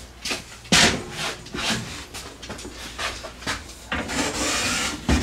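Aluminium-extrusion printer frame being slid into a larger aluminium-extrusion frame: a sharp knock about a second in, a few lighter taps, then a scrape of metal rubbing on metal lasting about a second near the end, ending on a thump.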